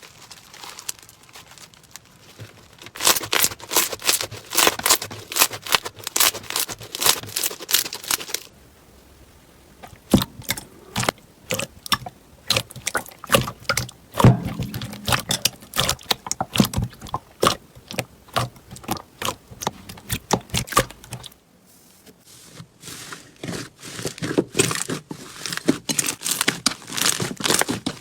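Slime being squeezed, stretched and poked by hand, giving off dense clusters of crackling, snapping and popping sounds. The crackling drops away briefly about a third of the way in and again about three quarters of the way through, as the handling changes.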